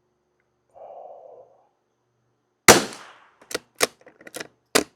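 A single shot from a Savage Mark II FV bolt-action .22 LR rifle firing CCI Standard Velocity ammunition, a sharp report with a short echo about two-thirds of the way in. It is followed by quick metallic clicks of the bolt being lifted, drawn back and closed to chamber the next round.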